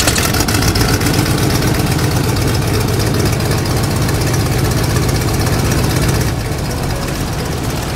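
Cessna 172R's four-cylinder Lycoming engine and propeller idling just after starting, a steady pulsing run that drops slightly about six seconds in.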